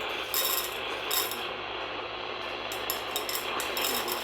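Weather radio receiver hiss between broadcast messages, broken by short crackly bursts: two in the first second and a half, then a quicker run near the end.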